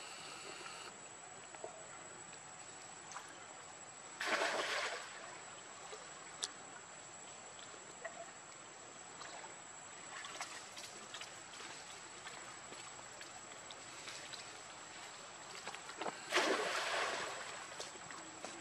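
Water splashing and lapping as monkeys move and swim in a shallow pool, with two louder splashes, about four seconds in and again near the end. A thin steady high whine runs underneath.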